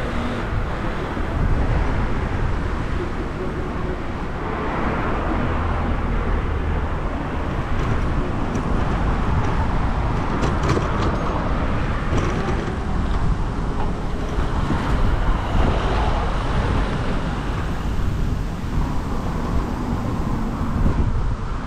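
Road traffic noise with vehicles swelling past about three times, over a steady low wind rumble on the microphone of a camera riding along on a moving bicycle.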